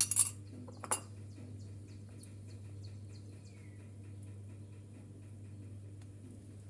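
A utensil stirring egg yolks in a mixing bowl. It knocks loudly against the bowl twice in the first second, then clinks faintly against the side in a steady rhythm of about three strokes a second.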